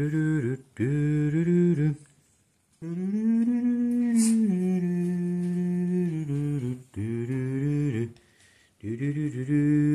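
A person humming a tune in short phrases, with one long held note in the middle that rises and then steps down.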